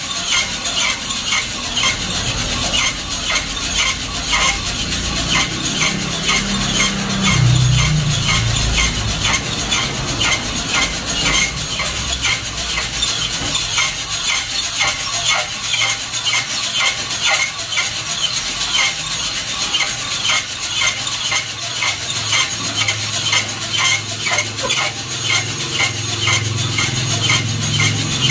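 Coffee beans tumbling and rattling inside a hand-turned slatted metal drum roaster, a steady repeating rattle as the drum rotates.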